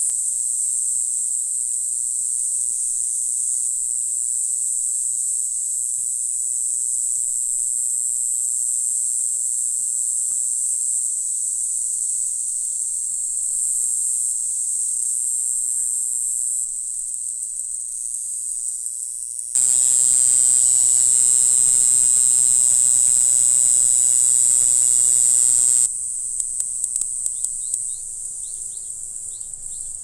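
Black-winged grass cicadas (Mogannia formosana) singing: a steady, high-pitched continuous song for about twenty seconds. A louder buzz then lasts about six seconds, followed near the end by a run of short, repeated clicking pulses.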